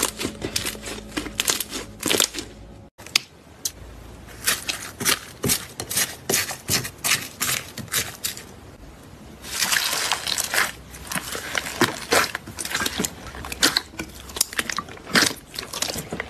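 Hands kneading and squeezing slime: quick runs of sharp pops and crackles as trapped air and the slime's texture give way. About three seconds in it switches to a pink slime full of small beads being pressed by hand, with crunching and wet squelching that thickens into a dense crackle around the middle.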